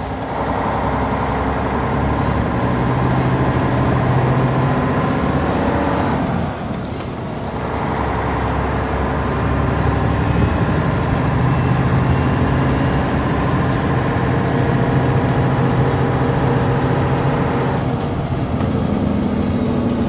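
A motor running steadily with a held hum and a faint high whine. It dips for a moment about six seconds in, picks up again, and fades near the end.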